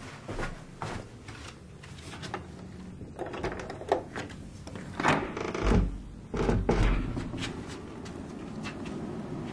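A house door being handled and opened: scattered clicks and knocks from the latch and lock, then a heavier low thud and rumble as the door swings open, about five to seven seconds in.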